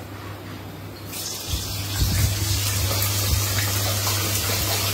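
Boiled chicken pieces going into hot oil in a pan: a sizzle starts suddenly about a second in and continues as a steady hiss, with a few low knocks as pieces go in, over a steady low hum.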